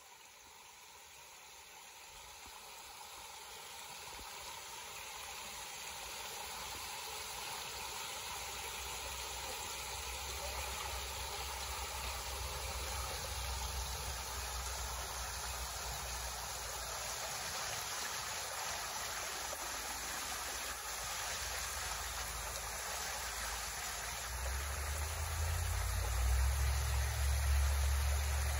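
Creek water rushing and pouring over the edge of a small concrete spillway: a steady hiss that grows gradually louder, with a deeper rumble joining in near the end.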